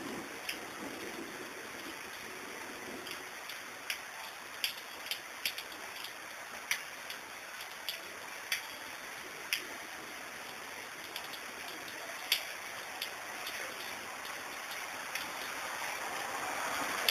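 Steady rain hiss with scattered sharp ticks of drops striking something close by, the rain growing heavier near the end.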